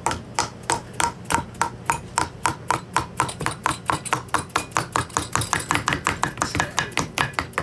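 Two mallets tapping rapidly and alternately on the aluminium cylinder block of a 1974 Honda CB350F engine, about six light knocks a second. The taps drive the block evenly down over its studs onto the base gasket.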